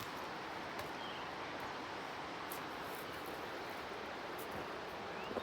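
Steady rushing of a waterfall, with a couple of faint short bird chirps over it.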